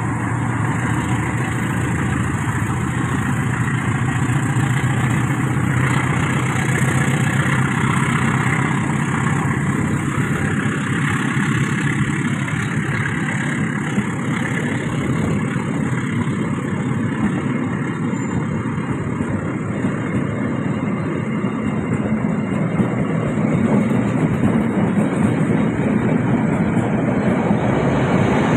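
Diesel-hauled passenger train rolling past at close range as it pulls away after being held at a signal. There is a steady diesel engine hum under the continuous running noise of the carriages' wheels on the rails, and it grows somewhat louder near the end.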